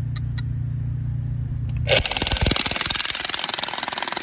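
A low, steady engine-like hum, then about two seconds in a jackhammer starts up suddenly and hammers in rapid, continuous strokes.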